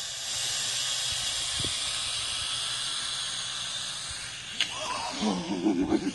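Small white quadcopter's propellers whirring with a steady hiss as it hovers low over the grass. The whir fades about four and a half seconds in as the drone comes down, followed by a click and a few short uneven sounds.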